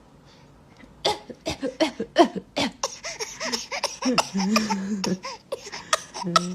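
A six-month-old baby coughing: a run of short, separate coughs starting about a second in, some with a squeaky voiced edge.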